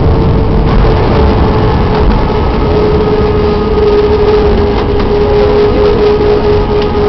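Airbus A319 cabin noise during landing: a loud, steady rumble of engines and airflow with a single steady whine that drifts slightly lower in pitch.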